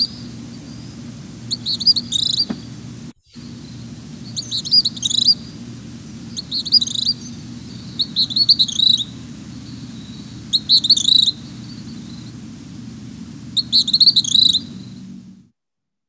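Recorded calls of a gray kingbird: short, high chattering phrases repeated every two seconds or so over a steady low background hum. The recording cuts off near the end.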